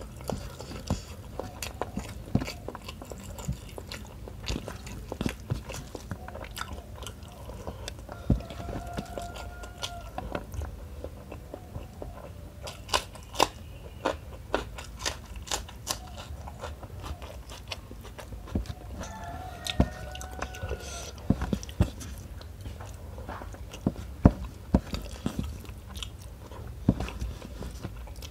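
Close-miked chewing of rice and tuna curry eaten by hand: wet mouth clicks and lip smacks with occasional crunchy bites, including fresh red chili.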